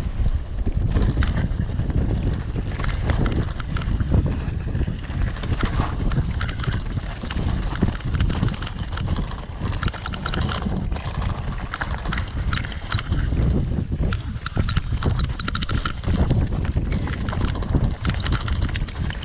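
Mountain bike rolling down a rough, rocky trail: tyres and frame clattering with many quick knocks and rattles over stones, under heavy wind buffeting on the microphone.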